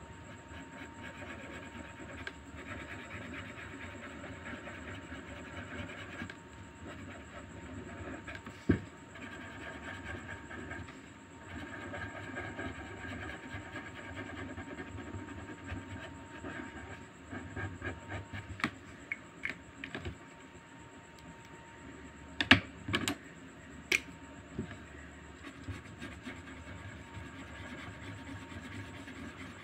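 Felt-tip marker scratching back and forth on paper while colouring, in runs of quick strokes. There are a few sharp clicks about two-thirds of the way through, the loudest sounds.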